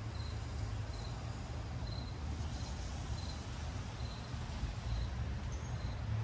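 An insect chirping: a short high-pitched chirp repeated evenly a little under twice a second, over a low rumble and a faint hiss.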